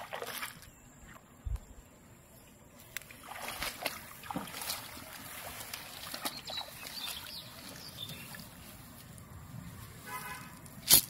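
Water sloshing and dripping, with wet weeds rustling, as a cast net is hauled out of a pond and carried through water hyacinth; a single sharp knock near the end.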